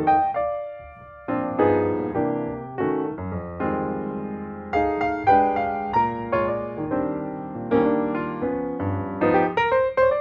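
Background piano music: chords and melody notes struck and left to ring, thinning out briefly about a second in.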